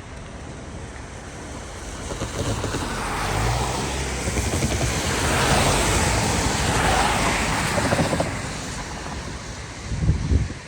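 Road traffic: a vehicle passes, its noise swelling over a few seconds and then fading. A short, loud low rumble comes near the end.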